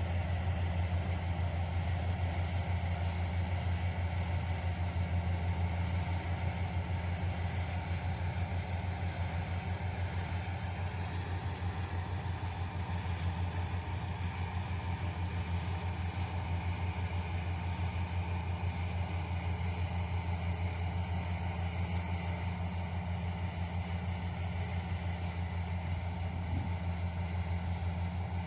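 Yanmar YH470 combine harvester's diesel engine running steadily with a constant low hum and no changes in speed.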